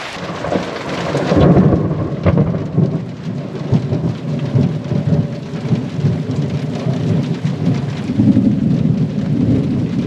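Thunder rumbling over steady heavy rain, the rumble swelling about a second and a half in and again near the end.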